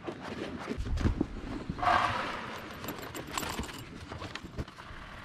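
Hands working damp fishing groundbait mixed with bentonite in a bowl: irregular rustling and scraping with a few light knocks, louder about two seconds in.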